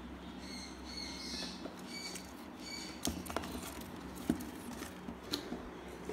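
Faint, short, high-pitched squeaks from African grey parrot chicks, followed by several sharp clicks and knocks from about halfway through.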